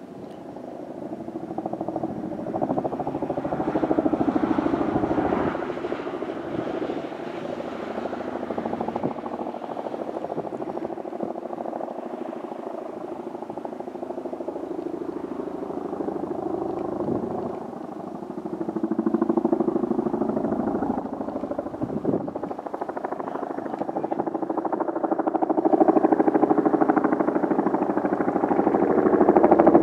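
Two Boeing CH-47 Chinook tandem-rotor helicopters in flight: the rapid beat of their rotors, growing louder as they approach.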